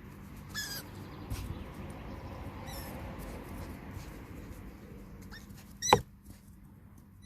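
Six-week-old roe deer fawn giving short, high-pitched peeping calls every couple of seconds, the loudest about six seconds in, together with a thump.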